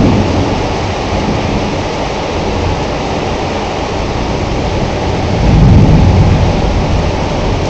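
Heavy rain falling steadily, with a low rumble of thunder that swells and fades about three-quarters of the way through.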